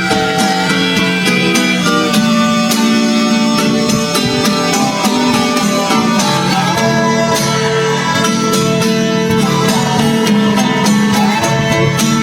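Background music: a string-band tune with plucked guitar and fiddle, playing steadily without a break.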